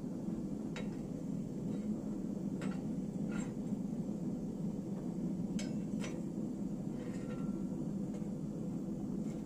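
Gas forge burner running with a steady low rushing noise, with about eight light metallic clinks as the steel cleaver blade and tongs touch the forge mouth and the steel table.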